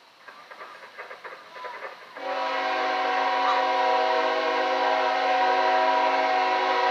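Locomotive air horn sounding one long, steady multi-note blast, starting abruptly about two seconds in, from an approaching train.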